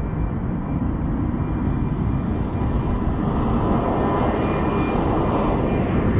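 Airplane engine noise, a steady rushing drone that slowly grows louder and brighter as the aircraft approaches.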